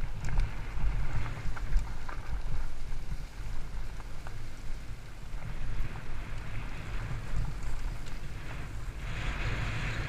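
Wind buffeting the camera microphone while a fat-tyre mountain bike rolls over a gravel and grass trail, giving a fluctuating low rumble with scattered clicks from the tyres and bike over rough ground. The wind hiss grows louder near the end.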